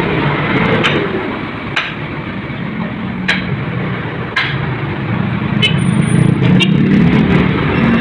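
City street traffic: motor vehicles passing, with a low engine hum that builds over the last few seconds, and several short sharp clicks scattered through it.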